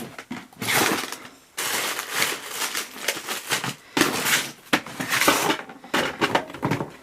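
Irregular rustling, crinkling and knocking of objects being handled.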